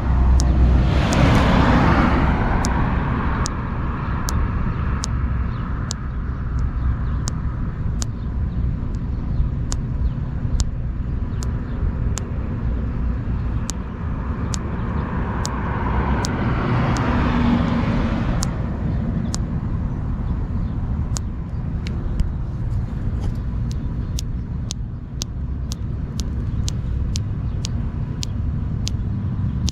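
Steady low rumble of road traffic, with two louder swells as vehicles pass, one near the start and one about halfway. Many short sharp clicks run through it, coming about twice a second in the second half.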